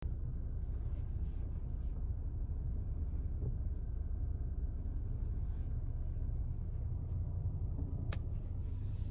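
Low, steady rumble of a Volvo car moving at low speed, heard from inside the cabin, with one faint click near the end.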